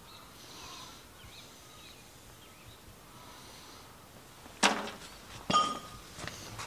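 Faint bird chirps over a quiet shop, then, a little over halfway through, two sharp metallic clanks about a second apart, the second ringing briefly, from the wheel-seal job on the trailer axle hub.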